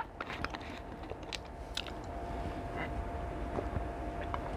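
A person chewing food, with small mouth clicks scattered through it.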